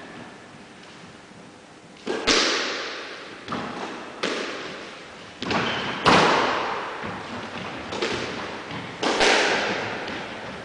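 Squash rally: a squash ball smacked back and forth by rackets and hitting the court walls, a sharp crack about every second after a quieter start, each ringing on in the echoing court. The loudest hit comes about six seconds in.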